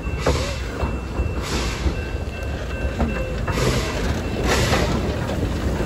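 Puffing Billy narrow-gauge steam locomotive moving slowly past at close range: a low rumble with puffs of steam exhaust hiss about every one to two seconds.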